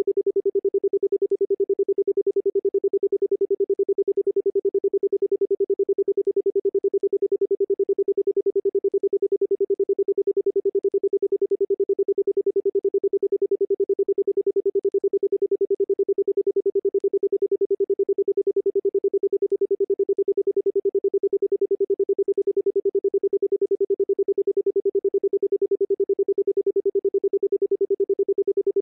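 A single steady electronic pure tone, used as a sound-therapy frequency, holding one mid pitch with a fast, even pulsing in loudness.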